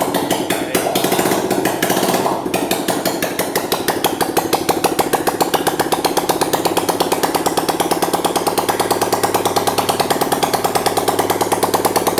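Freshly rebuilt Honda CG single-cylinder four-stroke motorcycle engine running with no exhaust pipe fitted: a rapid, even chatter of firing pulses from the open exhaust port. It runs a little faster at first, then settles into a steady idle about two and a half seconds in, running properly on its new cylinder and piston kit.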